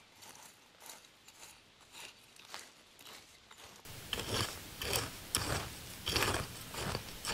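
Metal hoe blade scraping through dry, crumbly soil in repeated short strokes, about two a second, faint at first and louder from about halfway through.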